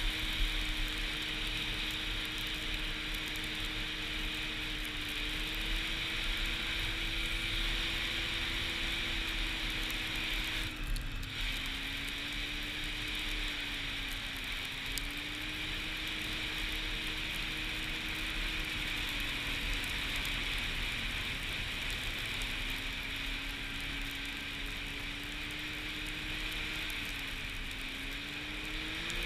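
Arctic Cat snowmobile engine running steadily at cruising speed on a trail, under a hiss of wind and track. Its pitch sags slightly a couple of times and climbs again right at the end.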